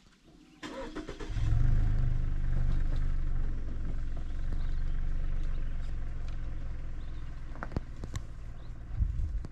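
A car engine is cranked and catches about a second in. It runs loudest just after starting, then settles into a steady low idle.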